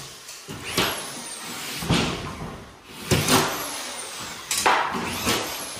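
Drywall being hung: a series of sharp knocks and thumps, about five in all, with a faint high whine falling in pitch after some of them.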